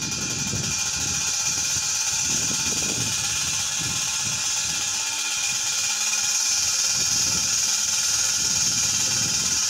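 Wind-driven pig scarer: a propeller on a pole spinning fast, its striking clatter running together into one continuous rattle. Wind buffets the microphone underneath.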